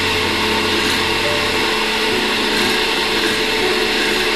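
Countertop blender motor running steadily at speed, puréeing habanero peppers, tomato, carrot, garlic and ginger into a wet sauce.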